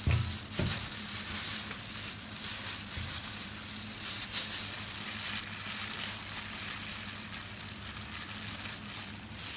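Steady background hiss of a commercial kitchen, with a low hum underneath and a few soft knocks near the start and about three seconds in.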